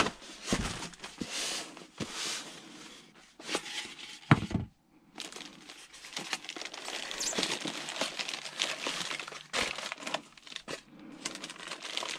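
Plastic wrapping crinkling and rustling as it is handled and pulled off a boxed model locomotive, with a few knocks of handling the packaging, the clearest about four seconds in.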